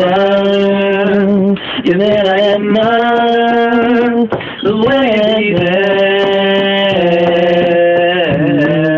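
A single voice singing unaccompanied: long held notes in three or four phrases, with short breaks for breath between them.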